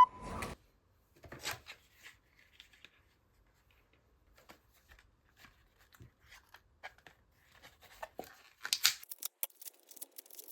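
Scattered small clicks and rustles of objects and packaging being handled in a small room, with a louder burst of rustling near the end.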